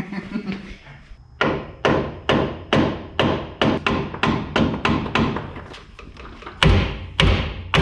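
Hammer blows on a seized, corroded bolt being driven out, about two strikes a second, with a few heavier blows near the end.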